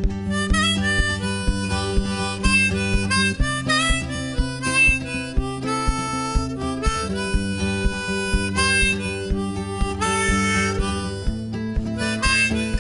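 Background music: an instrumental break in a song, a held melody over a steady beat.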